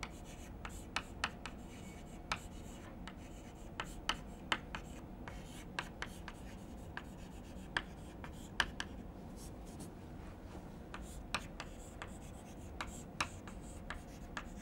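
Chalk writing on a green chalkboard: faint, irregular taps and short scratches of the chalk stick against the board.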